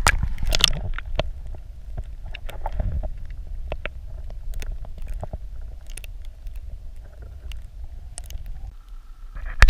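Water heard through a camera held under the surface: a muffled low rumble with many scattered sharp clicks and crackles. The rumble drops away about a second before the end, followed by one loud knock.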